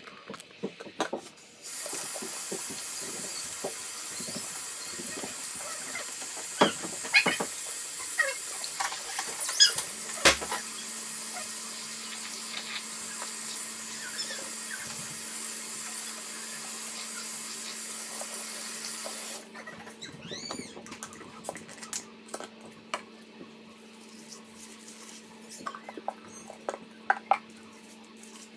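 Bathroom sink tap turned on near the start and running onto wet hair, then shut off abruptly about two-thirds of the way in. Afterwards, small wet squelches and clicks of hands working shampoo lather through the hair, over a low steady hum.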